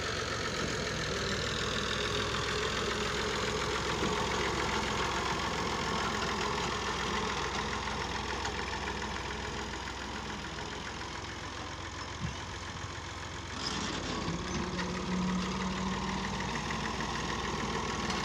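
Small diesel tractor engine running steadily while the tractor drags a rear levelling blade over loose soil to level a field. The engine's sound changes abruptly about two-thirds of the way through.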